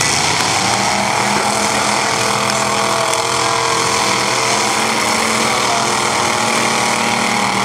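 Several demolition derby cars' engines running hard together, a steady loud din, as the cars push against one another under load.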